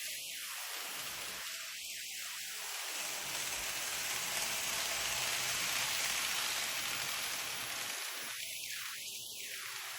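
Steady rolling hiss of an N gauge model train running on the track, swelling about midway and easing off again.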